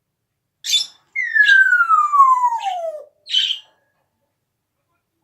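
Pet parrot calling: a short harsh call, then one long whistle that falls steadily in pitch over about two seconds with short harsh calls over it, and a last short harsh call.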